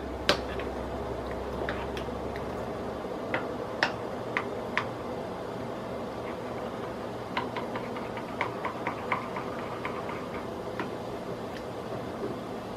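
A utensil clinks and scrapes against an enamel pot as a milky coconut and cornstarch mixture is stirred: scattered light ticks, coming in two bunches, over a steady faint hiss.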